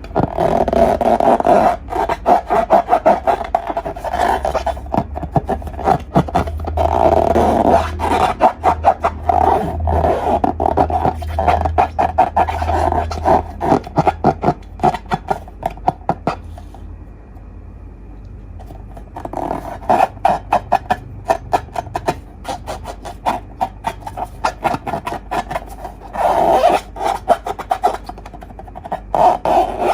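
Slime and balloons being worked by hand at close range: a dense run of sticky clicks and crackles with squeaky rubbing. It goes quieter for a few seconds past the middle, then picks up again.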